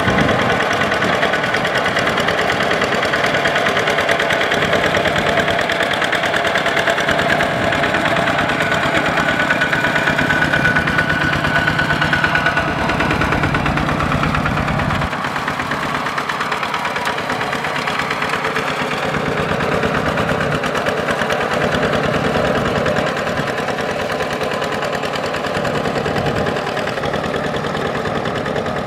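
Kubota RT120 walking tractor's single-cylinder diesel engine running steadily under load as its cage wheels churn a flooded paddy, a little quieter from about halfway through.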